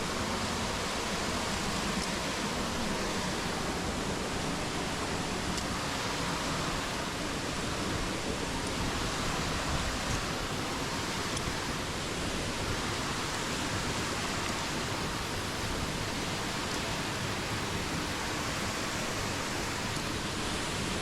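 Waterfall's falling water, a steady, unbroken rush.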